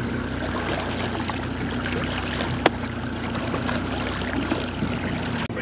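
Boat engine running steadily under a wash of water noise, with one sharp click about two and a half seconds in. The sound drops out briefly just before the end.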